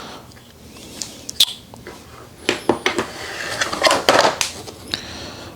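Ring light parts and their packaging being handled: scattered clicks, knocks and rustles as pieces are taken out and turned over.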